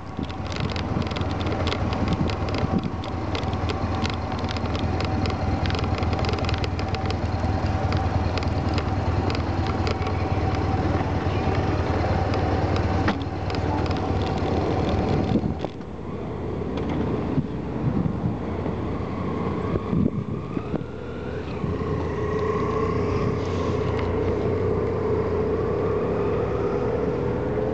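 Vehicle engine running steadily while driving off a ferry. The sound changes abruptly about halfway through, and a slowly rising tone follows near the end.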